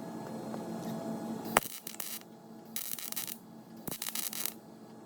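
Welder tack-welding the sheet steel of a 1968 Firebird's door to fill the door-handle recess. A steady hum ends in a sharp click, then come three short crackling arc bursts of about half a second each, roughly a second apart.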